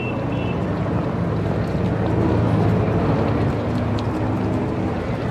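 Street traffic: a motor vehicle's engine running as it passes close, swelling to its loudest about halfway through and then easing off.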